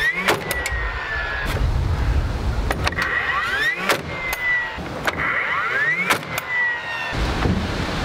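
DeWalt cordless nail gun repeatedly whining up in pitch and then down, with sharp shots as it drives nails into red pine balusters.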